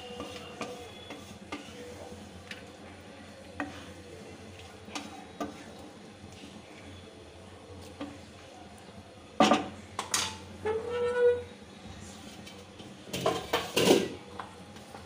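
A spatula stirring a thin curry gravy in a kadai, scraping and knocking against the pan. It makes light clicks at first, then loud clattering knocks about nine to ten seconds in and again near the end.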